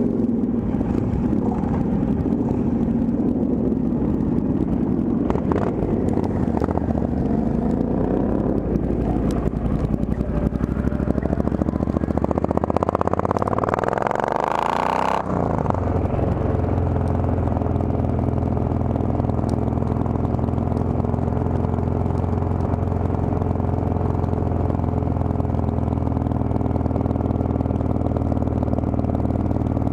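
Triumph Thunderbird motorcycle engine heard from the rider's seat, pulling away and accelerating with its pitch climbing. About halfway through, the sound changes abruptly and the engine settles into a steady, even drone at cruising speed.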